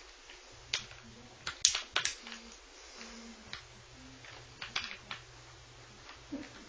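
Scattered light clicks and taps of a small screwdriver and tiny screws against a laptop's plastic screen bezel as the bezel screws are driven back in, the loudest a little over a second and a half in.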